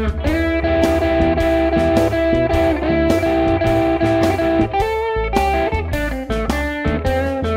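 Telecaster-style electric guitar playing a minor-pentatonic blues solo over a backing track. For the first four and a half seconds it repeats a triplet double-stop figure, then plays a descending single-note run near the end.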